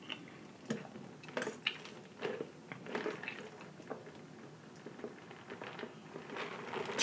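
Close-miked mouth sounds of eating and sipping a drink through a straw from a plastic cup: scattered soft clicks and short noises over a quiet room.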